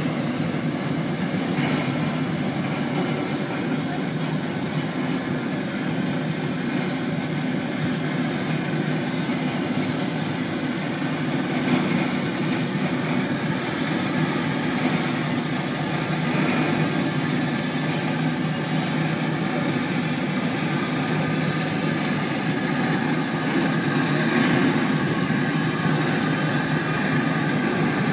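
A tugboat's diesel engine running steadily under load as it pushes a barge.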